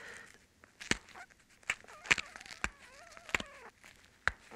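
About six light, sharp clicks and taps, irregularly spaced, as a stone knapping core is handled and turned in a leather lap pad.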